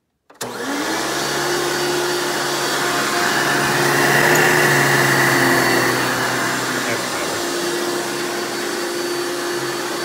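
Hoover Elite-based upright vacuum cleaner switched on with a click; its motor whine rises as it spins up, then it runs pretty loud and steady as it is pushed over carpet.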